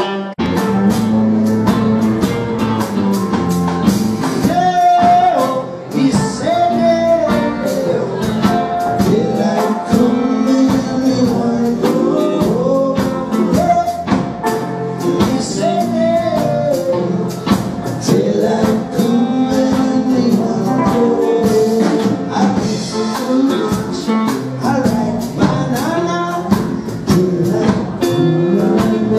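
A live rock band playing: two electric guitars, bass guitar and drums, with a man singing over them.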